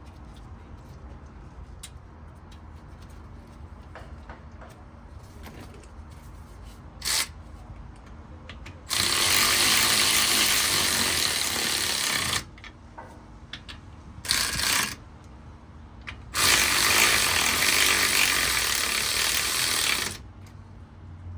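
Impact gun running the differential cover bolts down lightly, in separate bursts: a short one about seven seconds in, then a run of three to four seconds, a brief one, and another run of three to four seconds.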